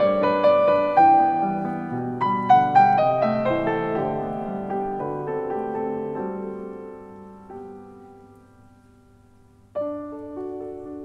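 Background piano music. A phrase dies away to near quiet about two-thirds of the way through, then a new phrase opens with a struck chord near the end.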